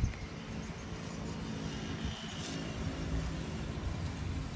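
Steady low rumble of road traffic, with a faint engine hum.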